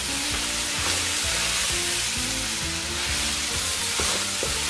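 Chicken and vegetables stir-frying in a non-stick pan, sizzling steadily as a wooden spatula stirs them, with background music underneath.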